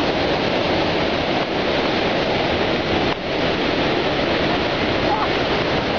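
Large waterfall in monsoon flood, a huge volume of water plunging into a gorge: a loud, steady, dense rush with no breaks.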